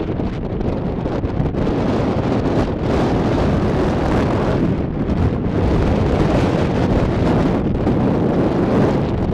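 Strong wind buffeting the camera microphone: a loud, steady rumbling noise.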